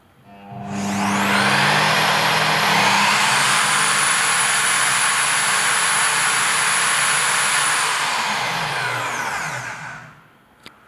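Bycon DMP-162 handheld diamond core drill motor, a carbon-brush motor, running a diamond core bit free with no load. It spins up with a rising whine about half a second in, runs steadily at full speed, then winds down with a falling whine and stops about ten seconds in.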